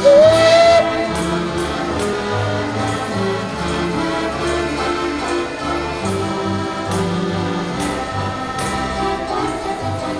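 Background music with a choir runs throughout. Right at the start a steam locomotive's whistle sounds once for under a second, rising slightly in pitch and then holding, louder than the music.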